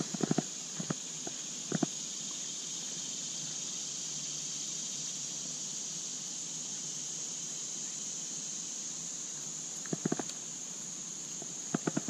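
Spinning reel and rod being handled during a cast and retrieve, giving a few sharp clicks in the first two seconds and again near the end, over a steady high-pitched hiss.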